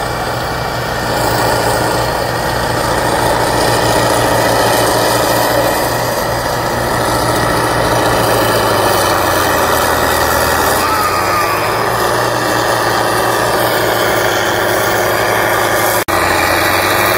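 Heavy diesel engine of a lightning-weeder rig, a field machine carrying a big generator and transformers for its 25,000-volt zapper bar, running steadily under load. The sound drops out for an instant near the end.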